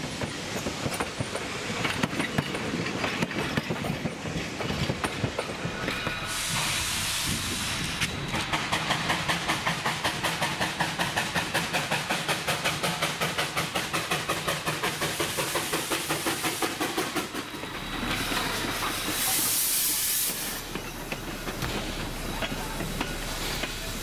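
Steam locomotive running past with its passenger train: irregular wheel clicks over rail joints at first, then a burst of steam hiss. After that comes a fast, even run of exhaust chuffs, about six a second, and near the end a second, louder hiss of steam.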